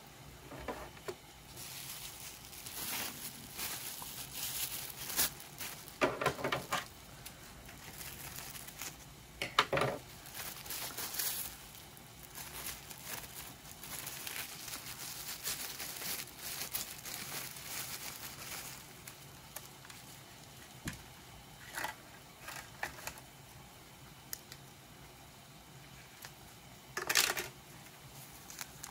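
Plastic wrapping of a ration cutlery kit crinkling and rustling as gloved hands open it and handle the packets inside. It comes in irregular bursts, loudest about six, ten and twenty-seven seconds in.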